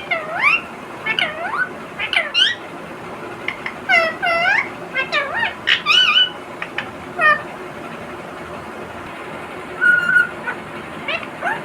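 Pet parrot chattering: a quick run of short squawks and chirps that sweep up and down in pitch, then a pause of about two seconds, a short steady whistle, and more calls near the end.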